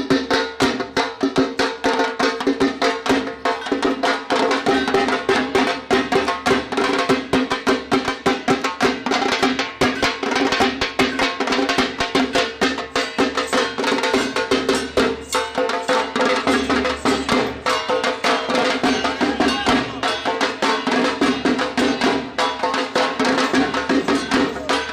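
Dhak drums, large Bengali barrel drums beaten with thin sticks, playing a fast, dense festival rhythm, with a steady ringing tone under the strokes.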